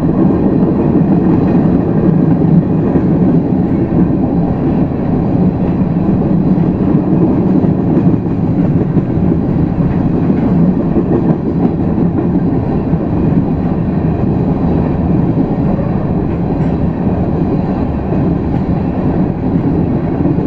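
Freight train of covered grain hopper cars rolling past, steel wheels on the rails making a loud, steady noise.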